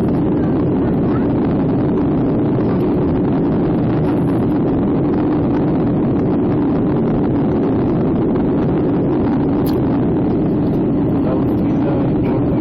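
Passenger jet airliner's engines and airflow giving a loud, steady drone with a low hum, unchanging throughout.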